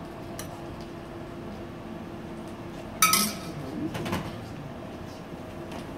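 Kitchenware clinking: one sharp, ringing clink about three seconds in, then a few softer knocks, over a steady background hum.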